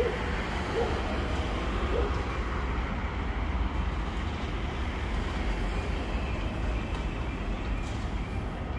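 Steady rumble of vehicles driving along the street below, with a deep low drone and no distinct events.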